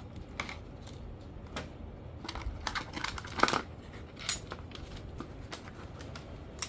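Plastic bag crinkling and cardboard box handling as a digital hanging scale is unpacked: a string of short crackles and clicks, the loudest about three and a half seconds in.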